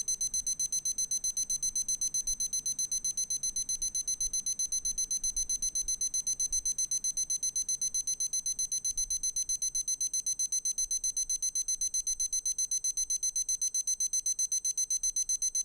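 Sharp digital alarm clock's alarm going off: rapid, high-pitched electronic beeping at about five beeps a second, held steady.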